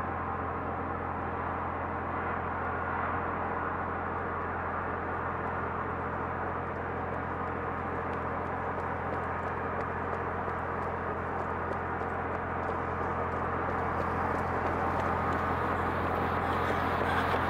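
Steady road noise of a car driving through a road tunnel: a low hum under an even rushing hiss, growing a little louder near the end.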